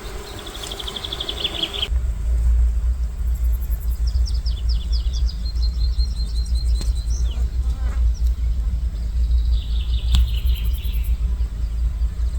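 Small birds singing short trilled and chirping phrases: one near the start, a longer string in the middle, another near the end. About two seconds in, a strong, uneven low rumble comes in and stays under them as the loudest sound.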